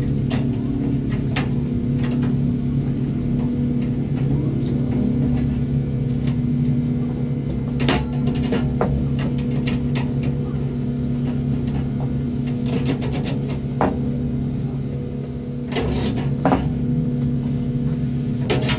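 Steady machine-like hum throughout, with scattered light metal clicks and clinks from bolts, washers and the steel crossbar of a gas-grill cart frame being handled and fitted.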